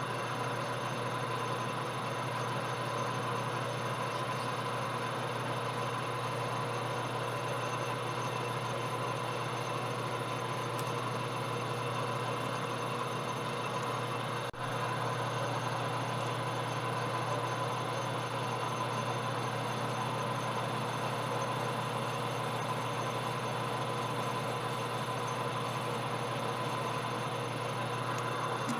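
Metal lathe running steadily, a constant motor and gear hum, with a brief break about halfway through.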